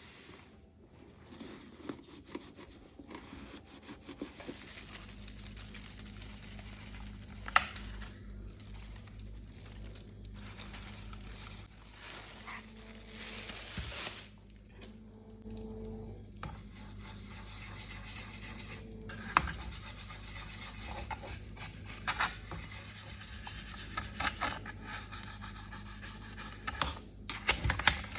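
Scrubbing and wiping a washing machine: irregular rubbing and scratching strokes, with two sharp clicks standing out, one about a quarter of the way in and one about two-thirds of the way in.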